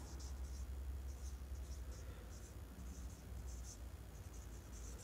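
Whiteboard marker scratching and squeaking in many short, faint strokes as words are written on a whiteboard, over a low steady hum.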